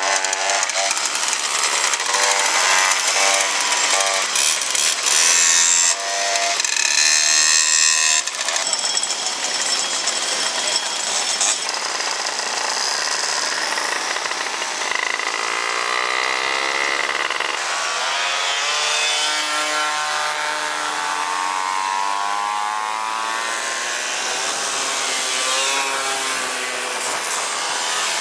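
Several two-stroke moped engines running and buzzing as a group rides, their pitch rising and falling as they are revved.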